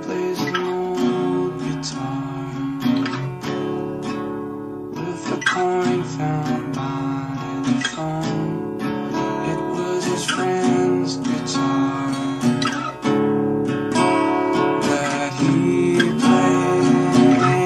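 Rock music led by a strummed guitar, from a 1991 home demo tape recording.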